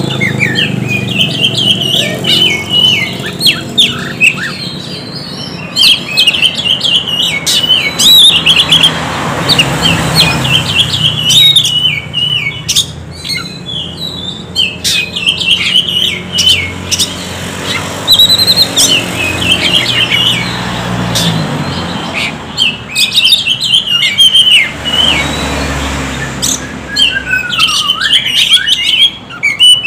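Oriental magpie-robin singing: a run of rapid, chattering whistled phrases with short pauses between them, over a steady low background rumble.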